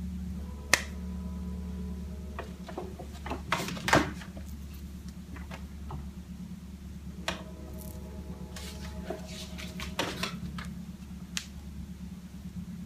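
Light rustles and scattered small clicks as hands handle and fluff long synthetic wig hair during a slow turn, the loudest a short cluster about four seconds in, over a steady low electrical hum.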